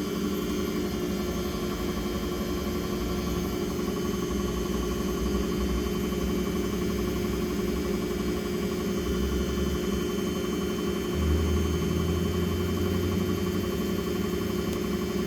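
Samsung washing machine running, a steady motor hum with a constant whine that neither rises nor falls.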